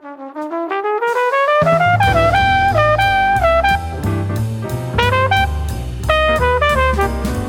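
Jazz music from the album: a lead line slides upward over the first second and a half, then bass and drums come in under a melody of held notes.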